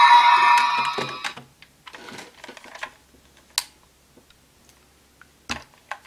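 Electronic sound effect from a DX Desire Driver toy belt fading out about a second in, then scattered small plastic clicks and taps as the toy is handled, with one sharper click about three and a half seconds in.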